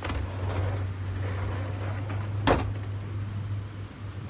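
A steady low motor hum, with one sharp click about two and a half seconds in; the hum drops away near the end.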